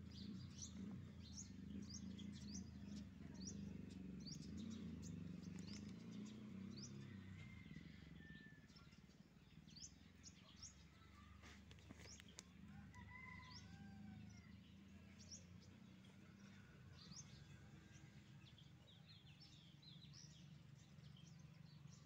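Faint birds chirping, short high chirps repeating throughout, with a few lower whistled calls, over a low rumble that fades after about seven seconds.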